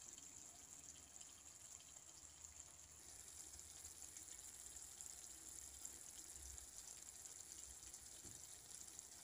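Near silence: a faint steady hiss of room tone.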